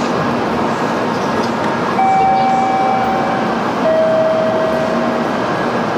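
A Shinkansen train standing at a station platform, its steady running hum filling the air. About two seconds in come two long electronic tones, the second lower than the first.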